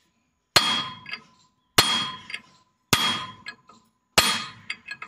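Four ringing hammer blows on steel, about one every 1.2 s, each followed by small clinks. They are knocking loose the end nut of a hydraulic cylinder, so that its leaking seal can be replaced.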